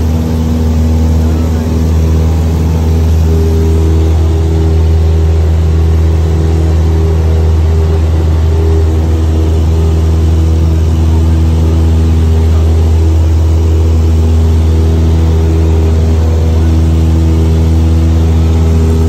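Cessna 172SP Skyhawk's four-cylinder Lycoming engine and propeller droning loudly and steadily at takeoff power, heard from inside the cabin.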